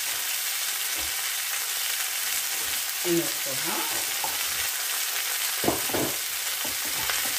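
Sliced vegetables sizzling steadily in a frying pan, with a few soft knocks as slices are handled, about a second in and again near 6 seconds.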